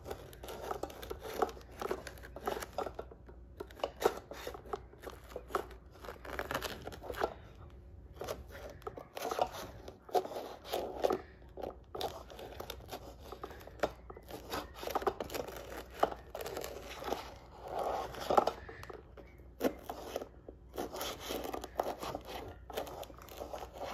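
A plastic brownie knife cutting through a pan of chewy brownies, scraping along the bottom of a metal baking pan and crackling through the sugar-dusted crust in many short, irregular strokes.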